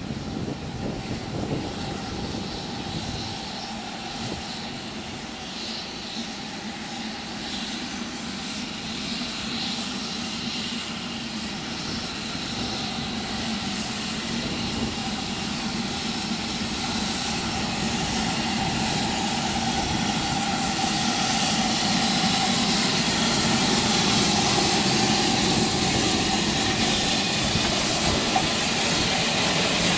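LMS Jubilee class steam locomotive 5690 Leander hauling coaches slowly through a station, a steady running sound that grows gradually louder as it approaches and draws alongside.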